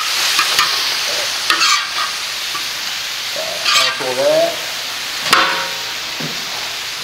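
Beef, onions and green beans sizzling steadily on hot steel disc cookers, with a metal spatula scraping and clinking across the disc several times.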